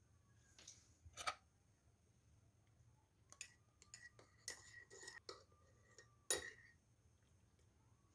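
Faint clinks of a metal spoon against a cup as the tea is handled or stirred. One comes about a second in, a quick cluster follows in the middle, and the loudest comes near the end. Some leave a short ring.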